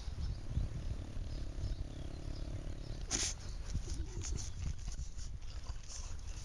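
French bulldog sniffing and snuffling with its nose pushed into the soil of a vole hole. A drawn-out nasal sound runs from about one to three seconds in, followed by short sharp sniffs, the loudest just after three seconds.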